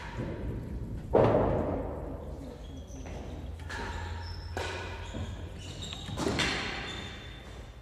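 Hard real tennis ball struck about a second in: a loud knock that rings on through the echoing court. A second, softer knock follows about five seconds later.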